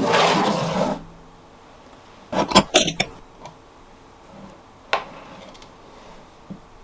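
Kitchen handling sounds: about a second of rustling noise, then a quick cluster of tableware clinks about two and a half seconds in, and a single click near five seconds.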